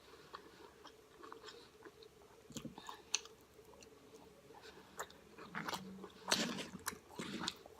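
Close-miked chewing and mouth sounds of a person eating food from a burrito bowl, with scattered small clicks; the chewing gets louder and busier from about five seconds in.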